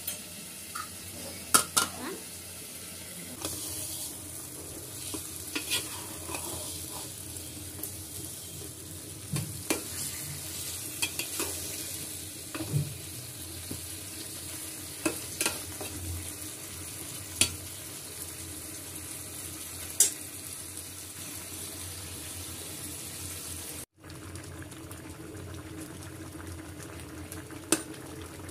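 Vegetable curry frying in an aluminium pot: a steady sizzle, with sharp scrapes and knocks as a metal spatula stirs it against the pot.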